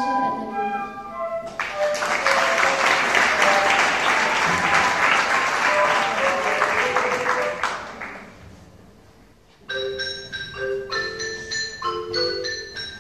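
The last notes of a piece of music, then audience applause for about six seconds that fades out. After a short lull, a mallet percussion instrument starts playing a tune of separate struck, ringing notes.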